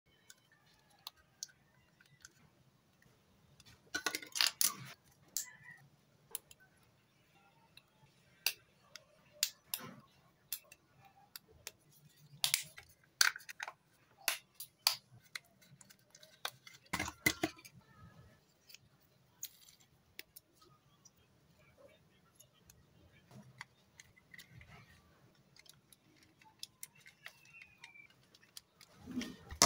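Plastic model-kit parts of a Hasegawa 1/72 Regult clicking and tapping as they are handled and pressed together, irregular sharp clicks with a few louder clusters of snaps.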